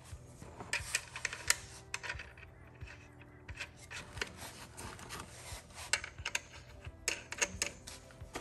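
Light metal clicks and clinks, irregular and in small clusters, as the parts of a Top Fuel dragster clutch pack are handled and fitted together.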